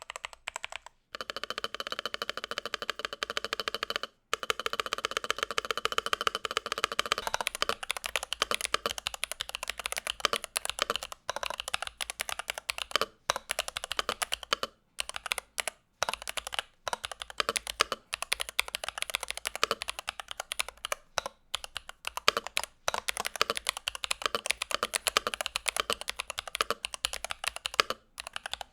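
Continuous typing on a NuPhy Halo65 high-profile mechanical keyboard: a fast stream of keystroke clacks with a few brief pauses.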